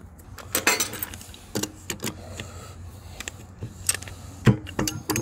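Steel cassette cogs clinking and an adjustable wrench clanking as the aluminum freehub body is rocked and levered out of a Shimano 10-speed cassette, where it is stuck because the cogs have dug into it. Irregular sharp metal clicks and clanks, the loudest about half a second in and about four and a half seconds in.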